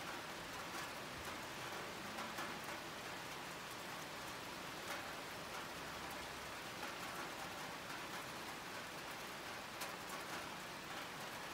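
Steady rain falling, with scattered sharp taps of single drops striking close by.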